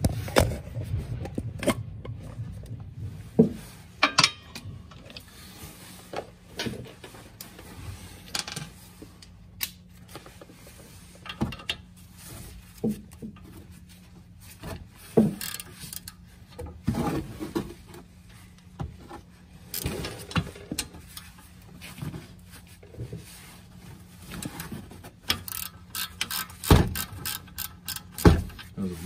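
Socket ratchet clicking in short runs as 15 mm bolts are broken loose and backed out, with scattered sharp metal knocks and clinks of tools. The clicks come quicker and closer together near the end.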